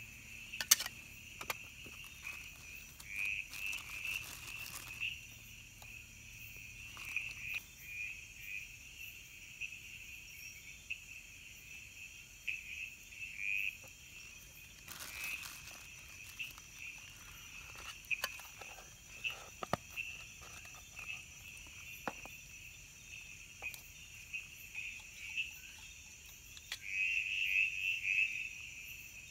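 Night-time tropical jungle insect chorus, a steady high-pitched trilling, with frog calls mixed in and louder near the end. Scattered clicks and rustles from hands handling a tobacco tin and pipe, one sharp click about a second in.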